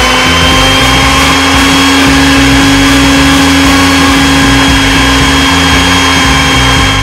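Electric hand mixer running steadily at one speed, a loud, even motor whine, its beaters churning thick batter.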